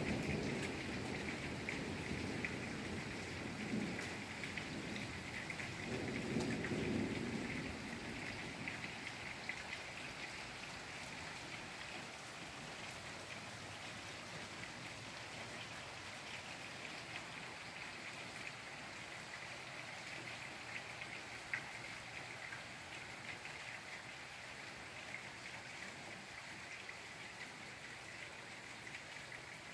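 Steady rain pattering down. Thunder rumbles low during the first several seconds and dies away, and the rain then goes on, slowly getting softer.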